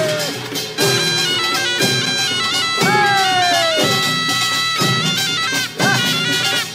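Korean pungmul farmers' band music: a reedy taepyeongso shawm plays a melody of held notes with long falling slides, over drum strokes about once a second.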